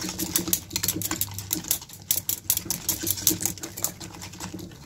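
A fork beating a thick gram-flour and cornflour batter in a ceramic bowl: quick, irregular clicking and tapping of the fork against the bowl, with the wet slap of the batter.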